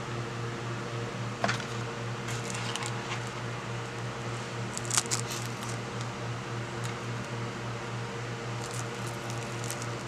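Plastic shrink-wrap and a card insert being handled, giving a few short crinkles and clicks, the loudest about five seconds in, over a steady low hum.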